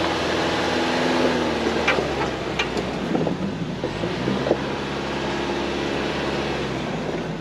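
Ford Bronco's engine running at low speed as it crawls over a rocky trail, with a few sharp knocks between about two and five seconds in.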